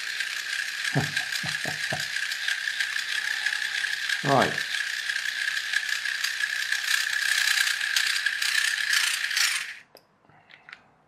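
Small electric toy motor driving a plastic gearbox, the gears clattering rapidly under a steady whine for about ten seconds, then cutting off suddenly.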